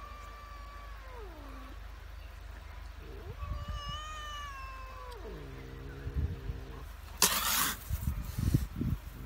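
Domestic cat caterwauling at a dog: long drawn-out yowls that slide down in pitch, the last one low and steady. About seven seconds in comes a sudden loud burst of noise, then a few thumps.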